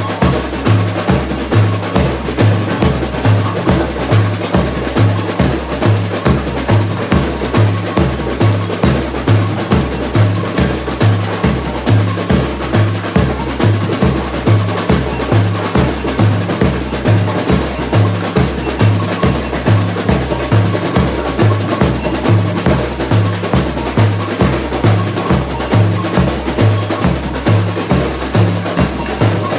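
Samba bateria drumming: deep surdo bass drums beat steadily at about two strokes a second, alternating between two low pitches, under a dense layer of snare drums and smaller percussion.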